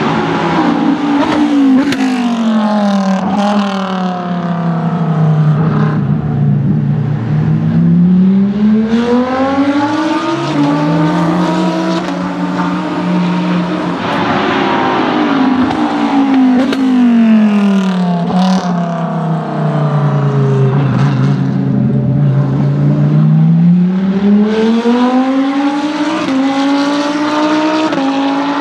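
Lamborghini Gallardo GT3 race car's V10 engine running hard on track, its note sweeping down and back up in long glides twice as the car brakes, accelerates and passes, with a few sharp pops along the way.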